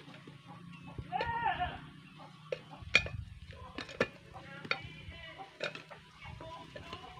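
Goat bleating about a second in, a wavering call, and again more faintly around five seconds. A few sharp knocks fall between the calls.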